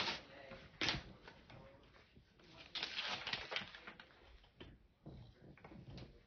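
Wrapping paper rustling and crinkling in faint, irregular bursts as a present is handled, with a sharper crackle about a second in and a denser spell of rustling around the middle.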